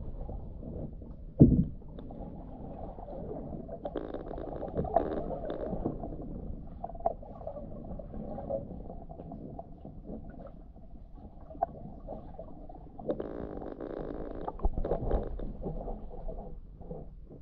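Muffled, low rumbling water noise heard from a camera dipped under a shallow river's surface, with scattered knocks and clicks and one loud thump about a second and a half in.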